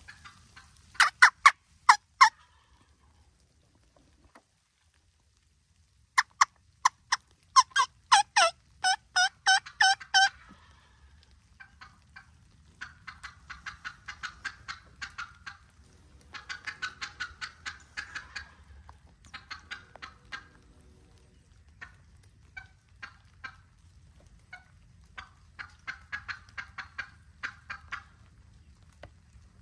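Wild turkey hen yelping: a run of four loud yelps, then a longer run of about ten. Fainter, faster runs of calls follow in several bouts.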